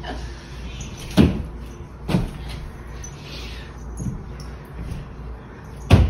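A handful of dull knocks, about five, irregularly spaced: the loudest about a second in and just before the end, with softer ones in between, over a steady low hum.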